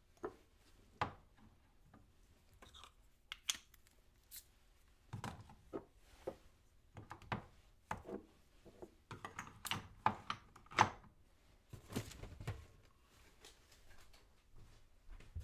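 Kitchen clatter: irregular knocks, clicks and thuds of utensils and dishware being handled, busiest through the middle.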